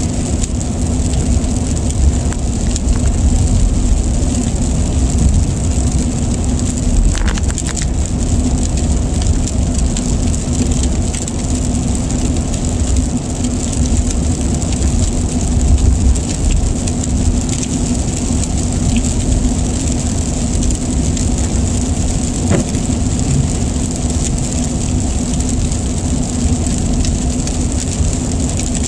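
Steady road and engine noise inside a car's cabin at highway speed, a low rumble throughout, with rain hitting the windshield.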